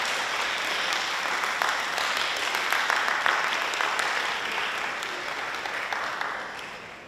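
Audience applauding with dense clapping, which dies down near the end.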